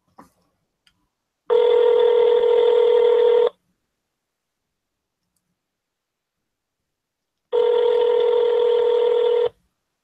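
Telephone ringback tone heard over the call line: two steady rings of about two seconds each, four seconds apart, as the dialled number rings unanswered.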